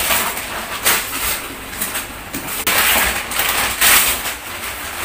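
Gift wrapping paper being ripped and crumpled off a cardboard box, in several sharp tearing rustles.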